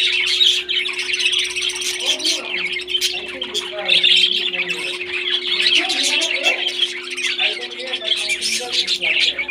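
A flock of parrots chattering and squawking continuously, many calls overlapping.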